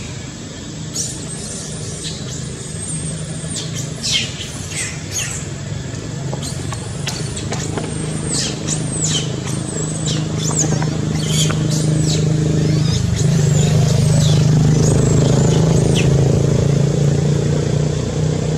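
Baby long-tailed macaque screaming over and over, a string of shrill, short cries that bend in pitch. Under them a motor vehicle's engine drones steadily and grows louder about two-thirds of the way through.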